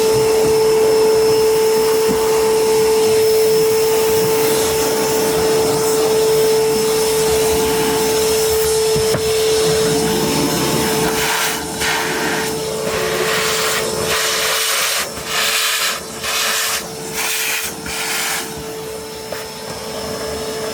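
Vacuum cleaner running with a steady whine, its nozzle sucking dirt from car carpet. In the second half the suction hiss cuts out and comes back several times in quick succession while the motor whine stays on.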